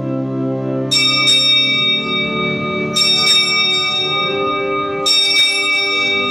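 A small bell struck three times, about two seconds apart, each a quick double stroke that rings on, over a held organ chord: the sacristy bell signalling the priest's entrance at the start of Mass.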